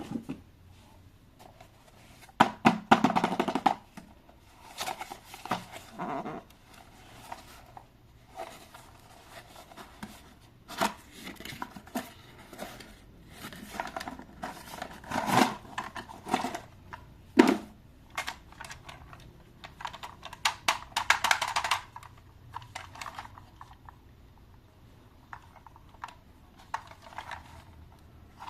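Irregular clicks, knocks and rustles of things being handled by hand, likely toy packaging, with denser bursts about three seconds in and again about twenty-one seconds in.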